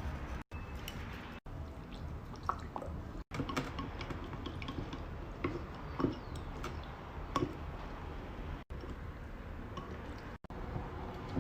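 Slime being squished and played with by hand, making scattered wet clicks and small pops, with brief drops to silence where short clips are cut together.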